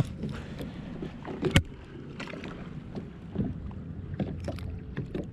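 Scattered light knocks and clunks of people moving and handling gear in a small fishing boat, the sharpest about a second and a half in, over a low rumble.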